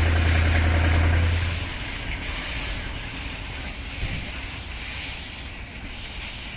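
A heavy diesel engine running with a loud, steady low drone that cuts down sharply about a second and a half in, leaving a quieter low rumble and wind noise.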